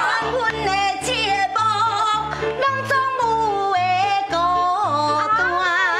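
A woman singing improvised Taiwanese opera (gezaixi) in a wide, wavering vibrato over a backing track with a steady pulsing bass.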